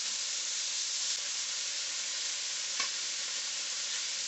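Chicken breast frying in avocado oil in a hot skillet: a steady sizzling hiss, with one light tap about three seconds in.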